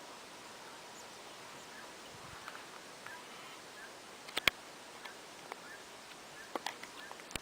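Faint rural outdoor ambience with small distant bird chirps and a few sharp clicks, the loudest a single click about halfway through.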